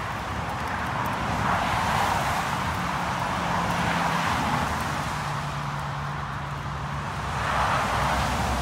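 Road traffic on wet tarmac: a steady hiss of tyres with a faint low hum, swelling as a vehicle passes about two seconds in and again near the end.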